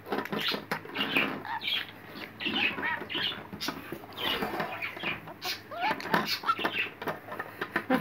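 Budgerigar chattering in rapid short chirps and squawks, mixed with sharp clicks. The calls are agitated: the bird is acting angry, fighting and biting at a finger.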